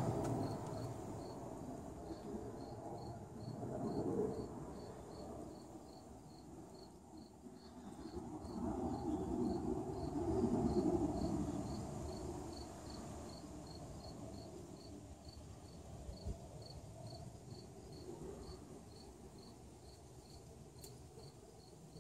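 A cricket chirping steadily, short high chirps at about two a second. Beneath it, a low muffled noise swells and fades, loudest around four and ten seconds in.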